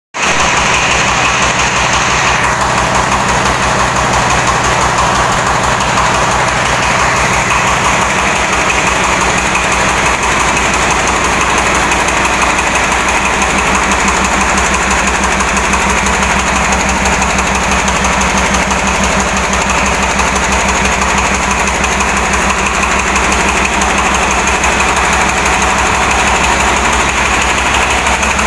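Hand tractor engine running steadily with an even, rapid beat, its note shifting slightly about eight seconds in.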